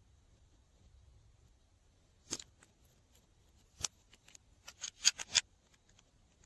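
Slime being handled and squished, giving off sharp clicking and popping sounds: a few single pops, then a quick cluster of them about five seconds in.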